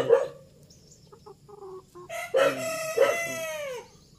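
A rooster crowing once, from about halfway in, ending on a long held note that falls off. A short loud sound right at the start.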